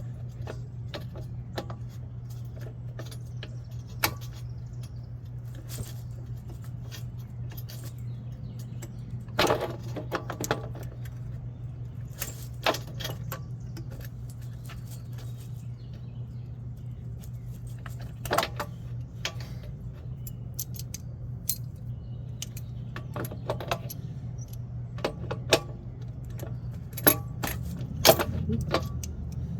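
Scattered metallic clinks and clanks of vice grips and other hand tools on radiator fittings, with a few sharper knocks, over a steady low hum.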